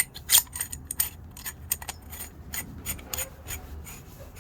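Small metal clicks and clinks from a titanium screwdriver and its steel bits being handled: an irregular run of sharp ticks, several with a brief high ring, loudest about half a second in.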